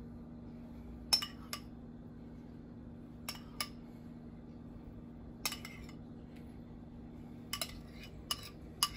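A metal spoon clinking against a cooking pot as ghee is spooned over the layered biryani rice. The clinks are short and sharp, mostly in pairs, every second or two, over a faint steady hum.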